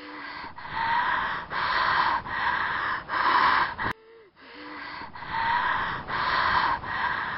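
A person breathing heavily and fast close to the microphone, a loud breath about every second, with a short break about halfway.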